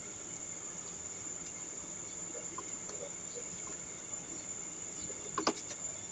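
A silicone spatula stirring soaked rice into a metal pot of boiling stock, with faint bubbling and stirring sounds and a couple of sharp knocks about five and a half seconds in, over a steady high-pitched whine.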